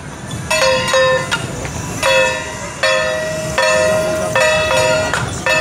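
Small hand-held brass gongs struck again and again, roughly every three-quarters of a second. Each stroke rings on with a bright metallic tone, as procession percussion for the masked dancers.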